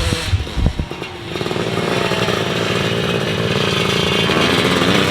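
Motocross bike engine running at speed, a steady buzz that comes in about a second in and wavers up and down in pitch as the rider works the throttle, after a few low thumps at the start.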